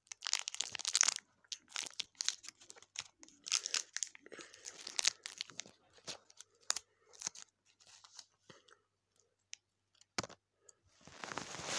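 Gum being chewed with the mouth close to the microphone: irregular clusters of wet smacks and clicks, thinning out after about eight seconds, with a longer rushing noise near the end.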